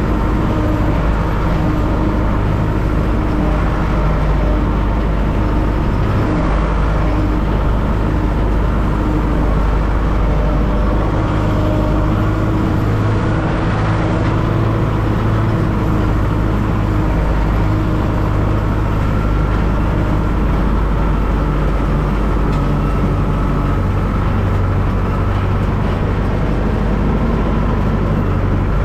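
Tractor engine running steadily, a constant low drone with a few steady higher tones over it.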